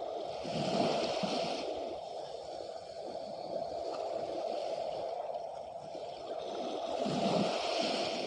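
Seawater washing at the shore, with two waves swelling and falling back, one about a second in and one near the end.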